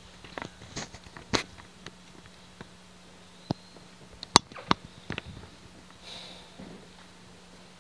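Small handling noises at a wooden lectern: scattered light clicks and knocks, the sharpest about four and a half seconds in, then a brief soft rustle, over a steady low hum.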